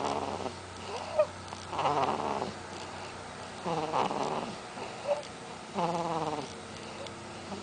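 Slow, regular snoring, one snore about every two seconds, with a short squeak between some of the breaths.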